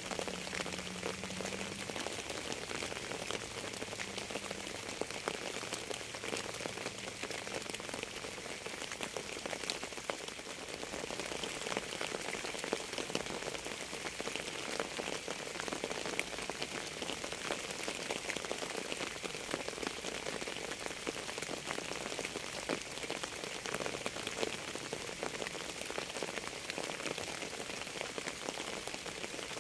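Steady rain falling on a surface, a dense even hiss of many individual drops ticking, with a few faint low tones in the first several seconds.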